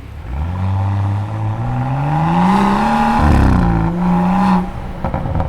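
BMW X4 M40i's turbocharged 3.0 L inline six-cylinder engine and exhaust under hard acceleration: the revs climb steadily for about three seconds, drop sharply at an upshift, build again briefly, then fall away as the throttle is released.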